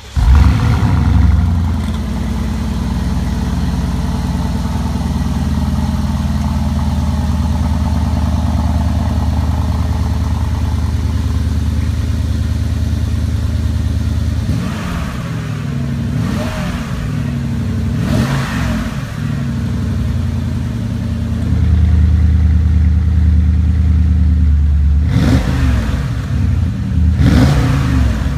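Porsche Cayenne Turbo S twin-turbo V8 with Akrapovic valved mufflers starting up, then idling steadily. It is revved a few times about halfway through, idles louder from about three-quarters of the way in, and is blipped twice more near the end.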